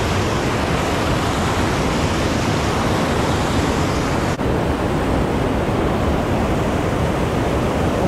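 Water rushing over a river dam's spillway right beside the microphone: a loud, steady roar, briefly cut off about four seconds in.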